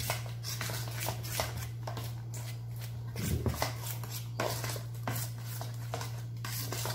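Flour and milk being stirred and worked in a stainless steel bowl: a quick run of short scraping and rubbing strokes against the metal, over a steady low hum. It is the flour being mixed into the yeast and milk to start the bread dough.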